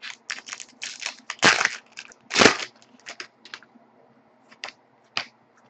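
Trading cards being handled: a run of quick scraping and rustling strokes as cards slide against each other, thinning out to a few single flicks and clicks in the last couple of seconds.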